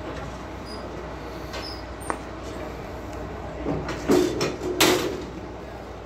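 A heavy squared log being shifted by hand on the steel bunks of a sawmill bed: scraping and a few knocks of wood on steel about four to five seconds in, over a steady low machine hum.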